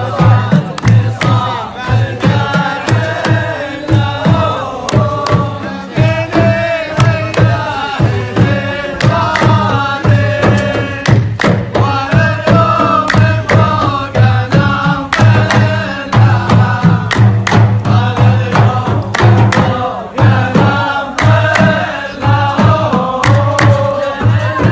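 Chanted vocal music with a deep pulsing drum beat and frequent sharp percussion hits.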